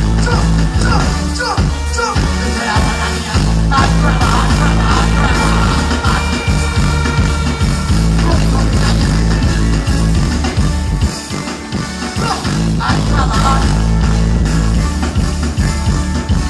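Live dancehall music played loud through a festival sound system, with a heavy, steady bass line and a voice over it at times. It drops briefly about eleven seconds in.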